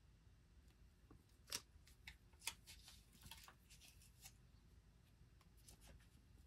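Faint crackling and clicking of blue painter's tape being handled and pulled from its roll, with two sharper snaps about one and a half and two and a half seconds in.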